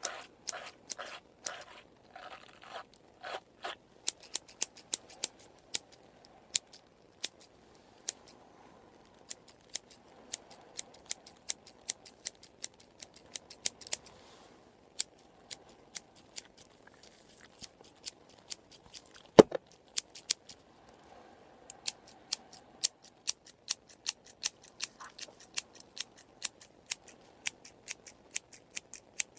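Haircut scissors snipping close to the microphone. The first few seconds hold slower, fuller strokes; after that come quick runs of crisp snips with short pauses, and one sharper, louder click about two thirds of the way through.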